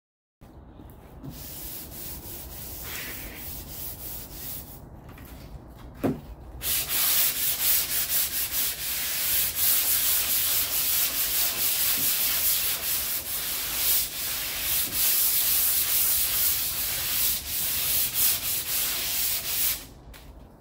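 Sandpaper on a hand sanding block scrubbing back and forth over cured body filler (Bondo) on a car quarter panel, leveling the filler. Lighter, broken strokes come first; from about six seconds in it turns into louder, steady, rapid scrubbing until just before the end.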